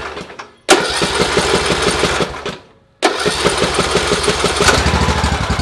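John Deere S100 riding mower's engine starting and running on a newly fitted battery, coming in three stretches broken by short silences: one fades out just after the start, the next runs about two seconds, and the last starts about three seconds in and keeps running steadily.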